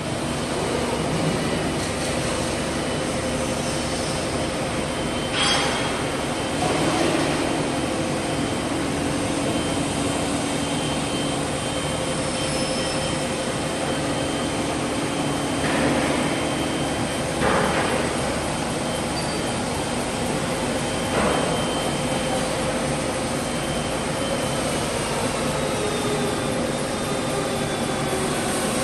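Tube mill production line running steadily: a continuous machine drone with a constant hum and several sharp knocks scattered through it.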